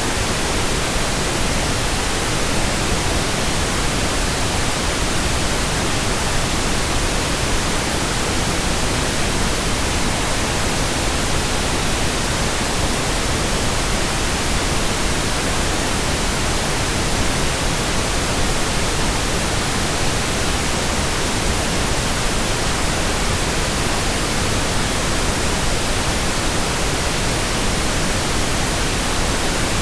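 Steady white noise: an even, unchanging hiss spread evenly across all pitches.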